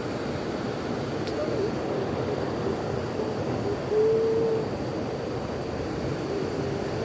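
Steady rushing outdoor noise, with a brief low hooting tone about four seconds in.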